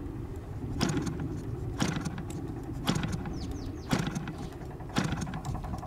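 ASP 61 two-stroke glow (nitro) engine on an RC plane being turned over by hand-flipping the propeller, with a sharp snap about once a second as each flip carries it over compression. The engine is primed but not yet firing.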